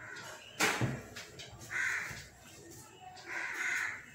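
A crow cawing twice, each call about half a second long and about a second and a half apart. About half a second in, a single sharp knock, the loudest sound here.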